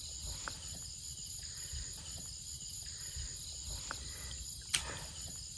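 Steady chorus of insects such as crickets, a continuous high chirring. One sharp knock or click comes near the end.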